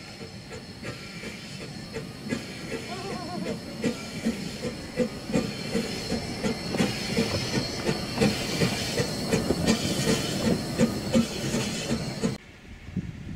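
Narrow-gauge steam locomotive working toward and past the listener: rapid, even exhaust chuffs, about four a second, with steam hissing, getting louder as it comes close. The sound cuts off abruptly near the end.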